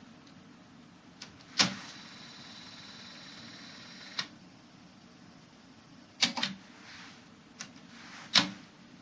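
Mechanical clicks from the transport keys and mechanism of a TRIO KX-1000 cassette deck as it is stopped and switched between modes. There are three sharp clicks and a few lighter ones, and a steady hiss lasts about two and a half seconds between the first and second clicks.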